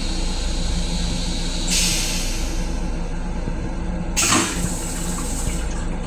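Toilet of a Long Island Rail Road M7 railcar flushing: a steady hiss of rinse water into the stainless-steel bowl, with a short louder whoosh about four seconds in as the bowl empties. A steady low hum runs underneath.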